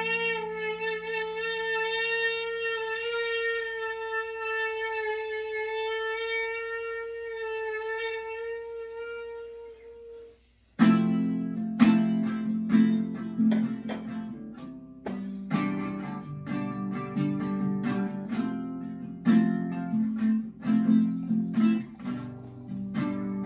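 A single long pitched note held for about ten seconds, then after a brief gap an acoustic guitar strumming chords in a steady rhythm.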